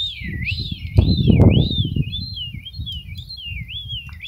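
A person whistling a high warbling call that swoops up and down two to three times a second without a break, to call a dog. Under it is a low rumbling noise that surges louder about a second in.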